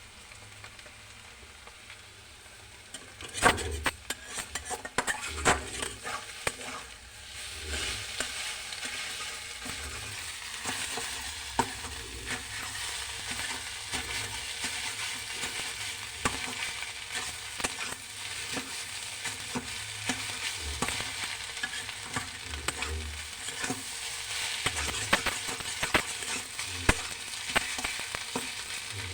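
Anda bhurji curry frying in a pan, sizzling steadily, with a spatula stirring and clicking against the pan. The stirring clatter starts a few seconds in, and the sizzling grows louder at about eight seconds.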